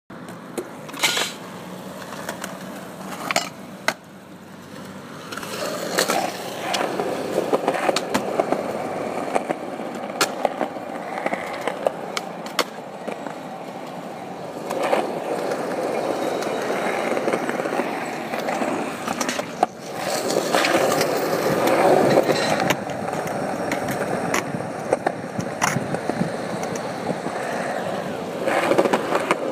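Skateboard wheels rolling over rough concrete with a steady gritty rumble that grows louder after about six seconds. It is broken again and again by sharp clacks and knocks of the board striking the ground.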